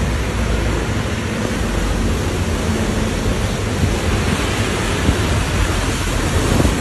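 Loud, steady rushing noise of heavy rain and fast-flowing muddy floodwater, with a low rumble underneath, heard through an open car window.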